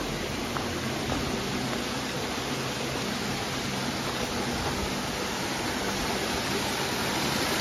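Flowing water from a stream or waterfall, a steady, even rush.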